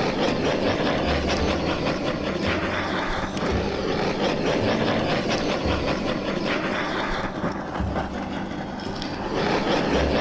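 Handheld gas torch on a canister burning with a steady rushing hiss as its flame is played over raw chicken wings.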